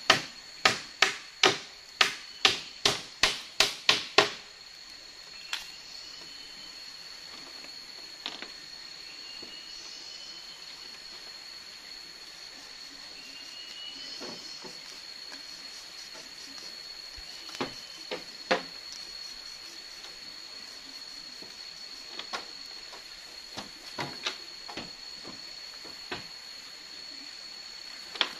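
A steady high-pitched insect drone, like a cicada or cricket, on one unbroken note. Over it, a quick run of about ten sharp knocks with a short ring comes in the first four seconds, then a few scattered single clicks and brief high chirps.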